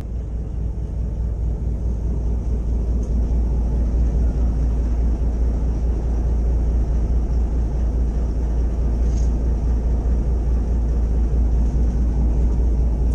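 Fishing boat's engine running with a steady low rumble, growing a little louder over the first few seconds.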